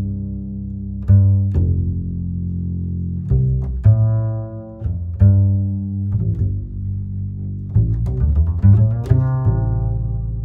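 Music played through a sound system's amplifier and speakers during a sound check, with strong, long-held bass notes and sharply plucked notes above them.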